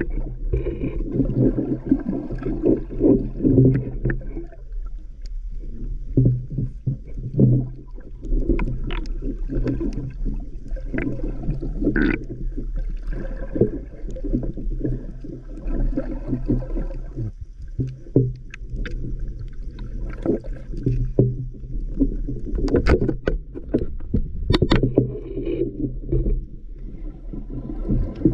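Underwater sound picked up by a camera below the surface: muffled, uneven sloshing and rumbling of water around the camera, with scattered sharp clicks and knocks.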